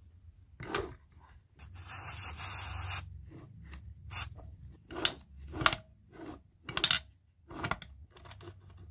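Metal parts of a 1957 NSU Quickly 48 cc engine handled during reassembly, as the crankcase half is closed. About a second of rasping rub comes early on, then a series of short, sharp clicks and taps of metal on metal.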